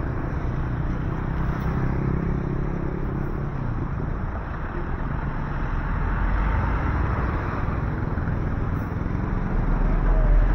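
City street ambience dominated by road traffic running past: a steady wash of engine and tyre noise, with a deeper rumble swelling near the end as a vehicle comes close.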